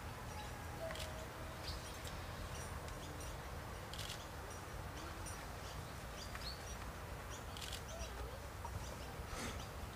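Outdoor ambience with scattered short bird chirps and calls over a steady low rumble.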